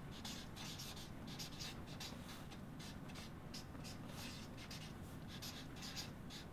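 Felt-tip marker scratching across a large sheet of paper in quick, uneven strokes as words are hand-lettered; faint.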